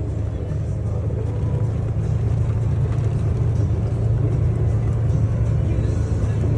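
Steady low rumble of a running vehicle, with music playing along with it.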